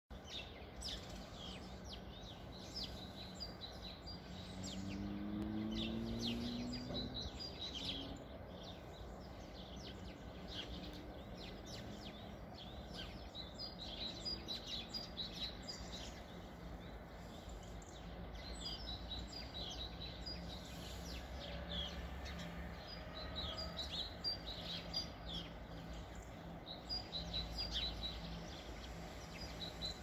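Small birds giving many short, high chirps in quick succession, over a steady low background rumble.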